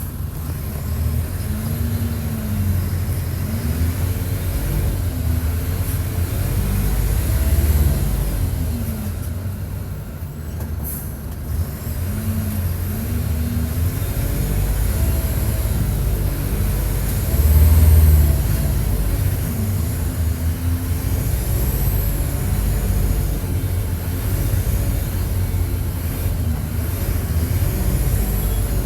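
Mercedes-Benz OF-1722 bus's six-cylinder turbodiesel heard close up while the bus drives hard. The engine pitch rises and drops over and over, and there is a short hiss about eleven seconds in. Around eighteen seconds the engine is at its loudest and deepest.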